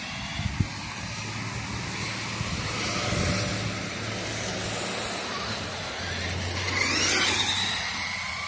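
Traxxas Stampede RC monster truck driving on asphalt: a steady whirring hiss from its drivetrain and tyres, with a whine that rises and falls about seven seconds in.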